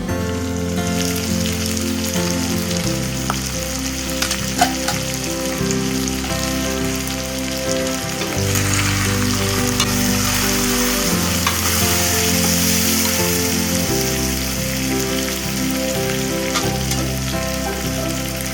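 Pork frying in a pan with a steady sizzle, with one brief knock about four and a half seconds in. Soft background music with held chords plays under it.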